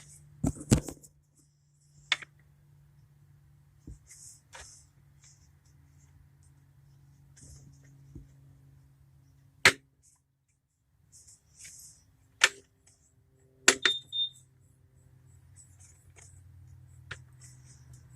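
Scattered sharp clinks and knocks of hand tools against metal car parts during a starter replacement, a few much louder than the rest, one ringing briefly. Under them runs a steady low hum that drops out for about a second midway.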